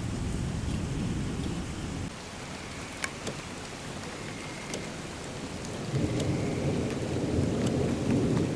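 Heavy rain falling steadily, with low rumbles of thunder over the first two seconds and again from about six seconds in. A few sharp drops tick close by in between.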